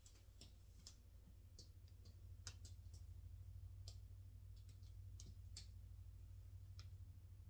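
Near silence: a low steady room hum with faint, irregular clicks about once a second.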